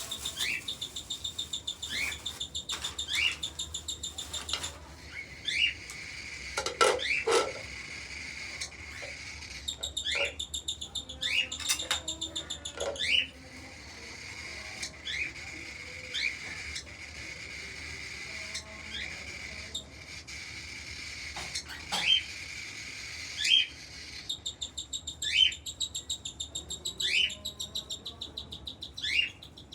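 Cockatiel chicks begging for food: rapid rhythmic chirping in stretches, broken by short rising chirps every second or two.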